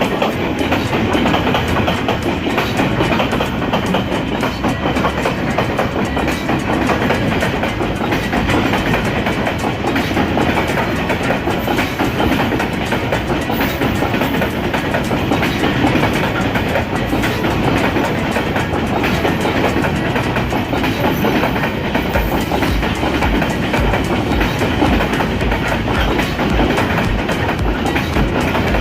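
A long freight train's wagons rolling steadily past on the track, wheels clattering over the rail joints in a continuous clickety-clack.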